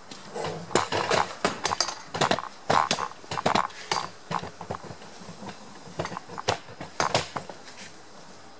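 Irregular clattering knocks and clicks, as of hard objects being handled, coming in a busy run over the first four seconds and again around six to seven seconds in.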